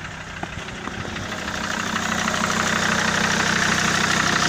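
SsangYong Rexton 2.7 five-cylinder diesel idling with a regular knock, growing louder over the first couple of seconds. The owner says the knock is not from the injectors.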